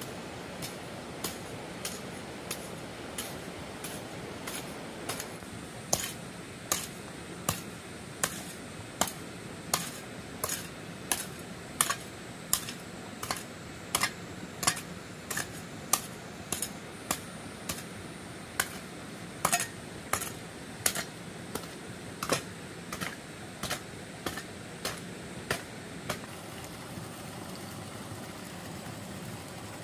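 A regular series of sharp taps or knocks, about one and a half a second, faint at first, loudest in the middle and dying away near the end, over a steady background hiss.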